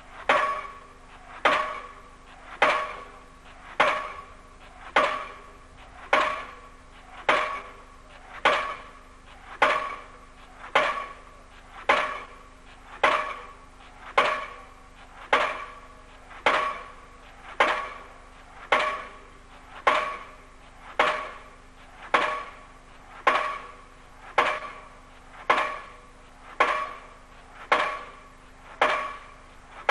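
Diesel pile hammer driving a precast concrete pile, striking in a steady rhythm just under one blow a second, each blow a sharp ringing clang that dies away quickly.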